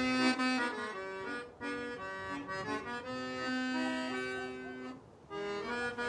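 Background music: a slow melody of held notes, breaking off briefly about five seconds in before going on.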